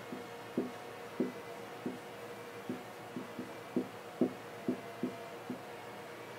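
Marker pen writing on a whiteboard: about a dozen short, uneven taps and knocks as each stroke starts and ends on the board, over a faint steady hum.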